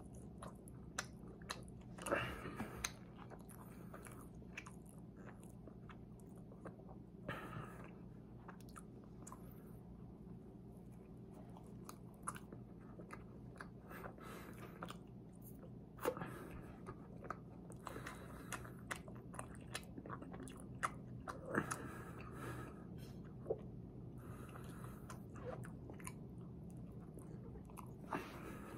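Close-up chewing and mouth sounds of a person eating a chocolate-glazed eclair, with several louder bites and smacks scattered through, over a steady low hum.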